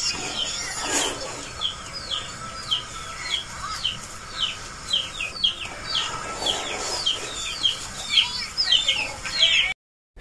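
Birds chirping: a run of short, falling chirps, about two a second, cutting off suddenly near the end.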